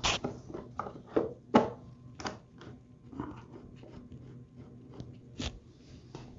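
Plastic air cleaner cover being pressed and clipped back onto a Briggs & Stratton lawn mower engine by hand: a string of sharp clicks and knocks, the loudest at the start and about a second and a half in.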